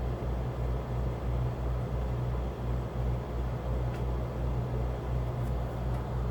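A steady low mechanical hum with a slow, even throbbing pulse.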